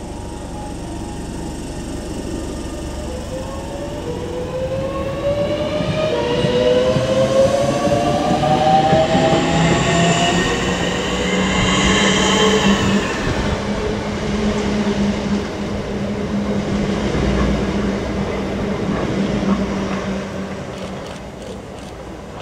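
Southeastern Electrostar electric multiple unit pulling away from the platform, its traction motors whining and rising in pitch as it accelerates, with the rumble of wheels on rail. The sound fades near the end as the train draws off.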